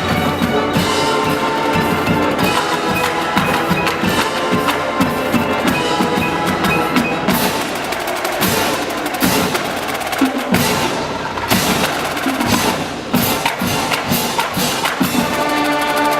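Marching band playing a percussion-led passage of drum and mallet-percussion strikes, with held chords at the start and again near the end.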